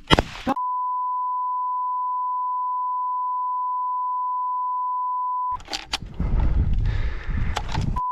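A sharp crack right at the start, then a steady 1 kHz censor bleep held for about five seconds, a couple of seconds of wind and rustling, and the bleep starting again near the end.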